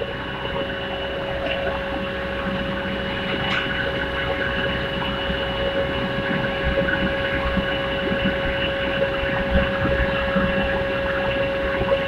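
Steady hum of a 450 kW induction melting furnace, one held tone with fainter higher ones, under a rushing, rumbling noise that slowly grows louder as molten copper pours from the tilted furnace.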